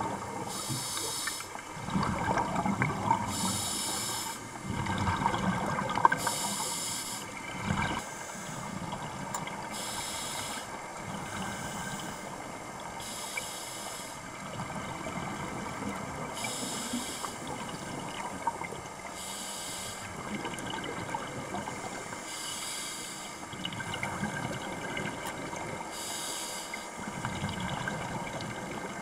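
Scuba diver breathing through a regulator underwater: a hiss on each inhalation every three or four seconds, with bursts of bubbling, loudest in the first several seconds.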